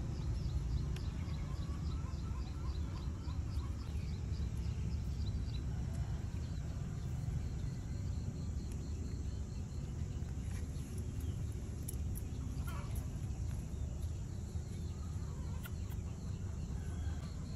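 Rural field ambience: a steady low rumble with chickens clucking faintly now and then, and a fast high chirping in the first five seconds or so.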